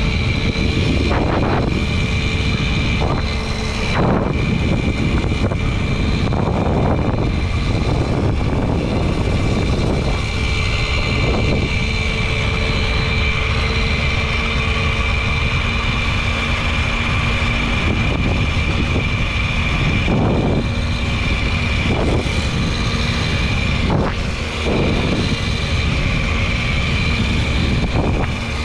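Babetta 210 moped's 50 cc two-stroke single-cylinder engine running at a steady pitch while riding, with wind rushing over the microphone.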